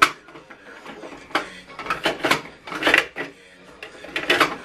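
Sheets of paper rustling and scraping against the plastic input tray of an HP DeskJet 3750 printer as a stack is loaded and squared in it by hand: a handful of short, irregular scrapes and taps, the strongest a little past halfway and near the end.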